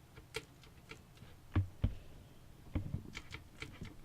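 Hands working inside a PC case: scattered light clicks and ticks of plastic and metal parts, with two heavier knocks about one and a half seconds in and two more near three seconds.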